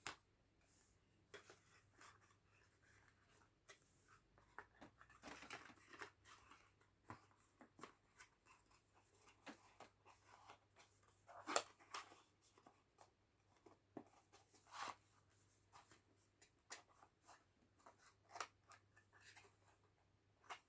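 Faint handling of small skincare jars and their cardboard boxes: scattered light clicks and rustles, with one sharper click about halfway through.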